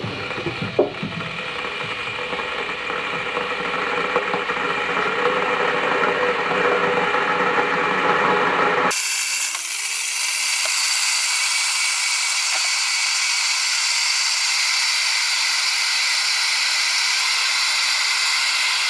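Electric kettle heating a full load of water: a steady rushing hiss that slowly builds, then switches abruptly about halfway through to a thinner, higher hiss.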